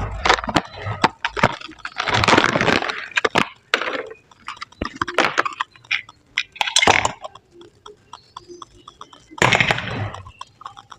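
Irregular sharp clicks, clinks and knocks of hand work with tools and parts, with several short scraping or rasping noises in between.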